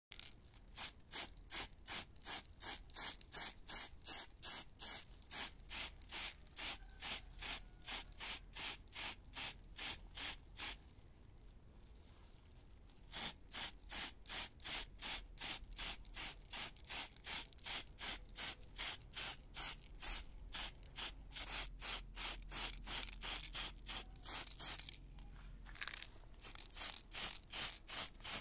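Rhythmic back-and-forth hand rubbing strokes, about two to three a second, with a pause of about two seconds near the middle and a shorter break near the end.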